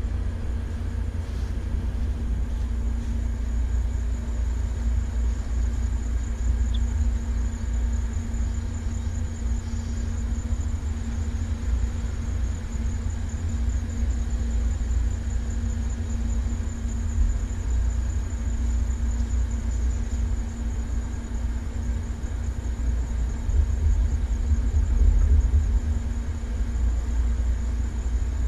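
Replica Sopwith Pup's engine running steadily at idle while the aircraft stands still, with a heavy low rumble and a steady hum.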